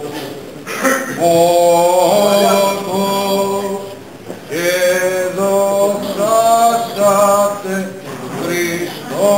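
Male voice chanting a Greek Orthodox Byzantine hymn of the Easter Resurrection service, in three phrases of long, gently wavering held notes with short breaks between.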